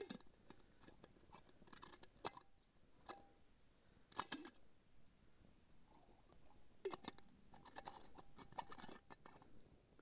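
Faint, scattered crackles and clicks: twigs burning in a small folding metal wood stove, mixed with the clink and scrape of a metal water bottle and a metal pot being handled. The crackly clusters come thickest near the end.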